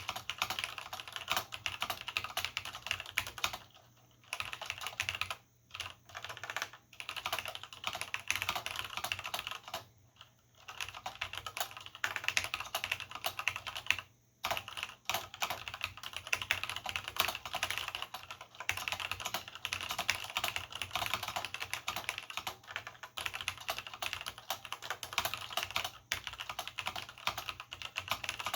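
Fast, continuous typing on a vintage Cherry G80-0693/c mechanical keyboard with Cherry MX Black linear switches and doubleshot keycaps: rapid key clacks in long runs, broken by brief pauses about 4, 10 and 14 seconds in.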